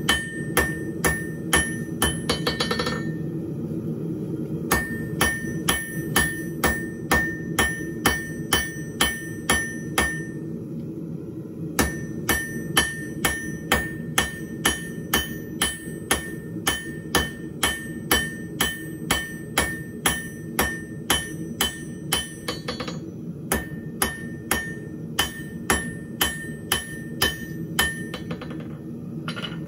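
Hand hammer striking a red-hot half-inch round bar on an anvil, forging it from round to square. The blows come about two a second in runs of several seconds with short pauses, and the anvil rings after each blow. A steady low rumble runs underneath.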